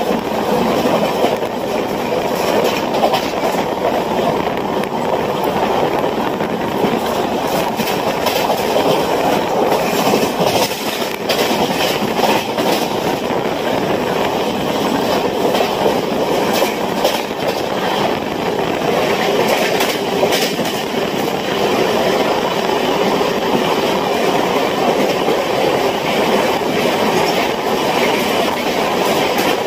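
Running noise of an express passenger train at speed, heard from an open coach doorway: a steady rumble of wheels on rail, with irregular clicks and clacks over rail joints that are thickest around the middle.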